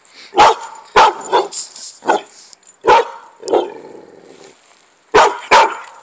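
Pit bull puppy barking, about seven sharp barks in quick succession, a pause of over a second, then two more barks near the end.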